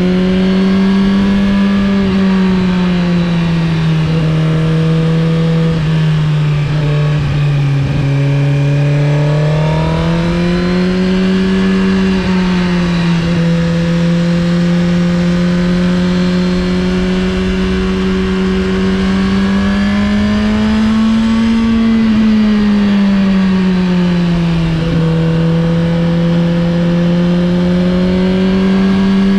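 Suzuki GSX-R1000R's inline-four engine running under way in second gear, its note rising and falling gently with the throttle through the bends.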